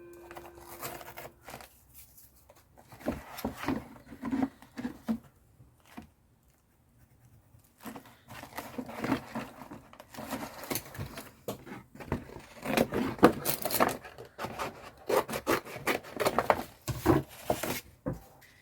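Irregular rubbing, scraping and light tapping of paper and card being handled and worked on a craft table, with a quiet pause about six seconds in and busier handling in the last third.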